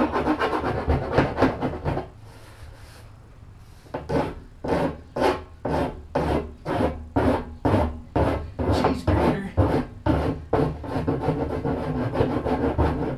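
A rasp-file scraping back and forth along the cut rim of a barrel, smoothing the edge. Quick, dense strokes at first, a pause of about two seconds, then steady strokes about two a second.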